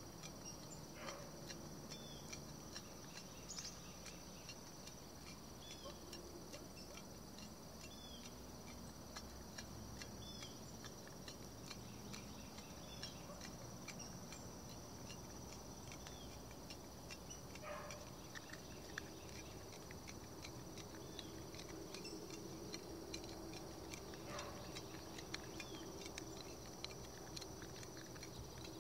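Crickets trilling steadily and faintly in the background, with scattered soft clicks.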